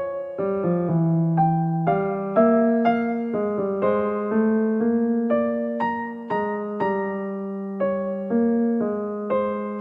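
Slow keyboard music: single notes and chords struck about one or two a second, each ringing out and fading before the next.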